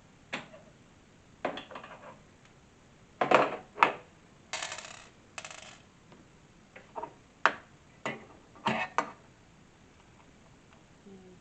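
Metal hinge hardware and screws being handled on the wooden bench: a series of sharp clinks and knocks, with two short scraping rustles about halfway through.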